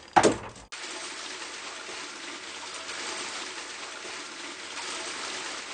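A single hammer blow strikes a log transducer through-hull fitting, breaking it. Seawater then gushes up through the hole into the bilge in a steady rush.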